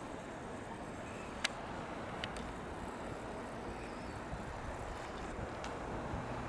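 Steady road-traffic noise, with two brief sharp clicks about one and a half and two and a quarter seconds in.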